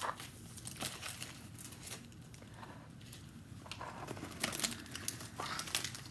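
Plastic snack packet crinkling as it is handled, in irregular crackles that grow busier and louder in the second half.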